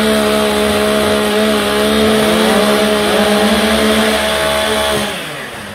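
Two-stroke chainsaw revved up and held at a steady high full-throttle pitch, being warmed up before a timbersports heat; the throttle is let off about five seconds in and the revs fall away.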